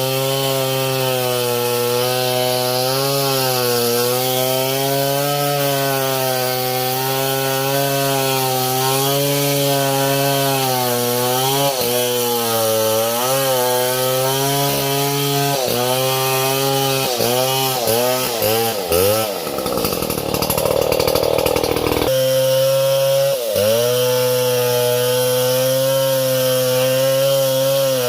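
Small two-stroke chainsaw running at high revs while cutting wood, its engine pitch wavering as the chain is loaded. About two-thirds of the way through the revs dip repeatedly, followed by a couple of seconds of rough noise without the engine tone, before steady running resumes.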